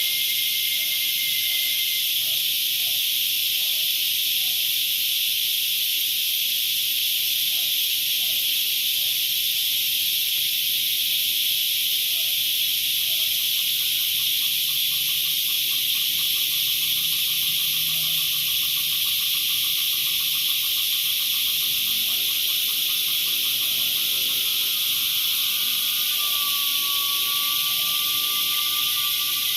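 Coyuyos (cicadas) singing: a loud, continuous high-pitched buzz that holds steady without a break.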